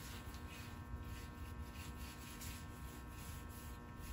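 Faint soft rubbing of gloved hands working oil finish into a wooden yew longbow limb, over a low steady hum.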